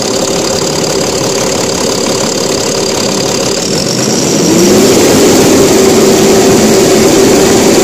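Mahindra Blazo BS4 truck's diesel engine running at idle, then revving up about four and a half seconds in and holding at the higher speed. The cylinder-3 injector connector's corroded pins, the cause of fault code P0204 and the RPM limit, have just been cleaned.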